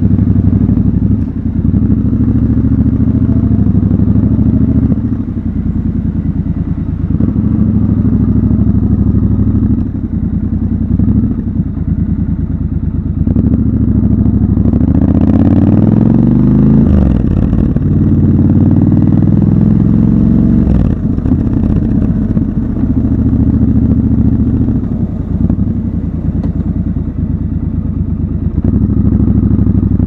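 Triumph Scrambler 1200 XC's 1200 cc parallel-twin engine running under way, heard close up. The revs dip briefly every few seconds, and just past the middle the pitch rises for several seconds as the bike accelerates.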